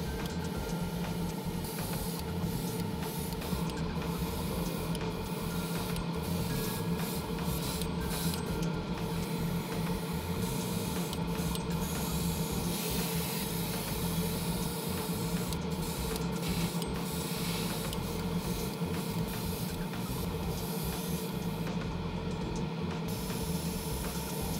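Airbrush painting setup running: a steady motor hum under the airy hiss of paint being sprayed.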